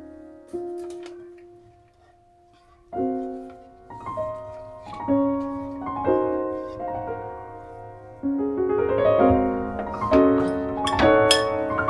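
Background piano music: single notes and chords that ring and fade, starting sparse and becoming fuller and busier after about eight seconds, with a few light clicks among them.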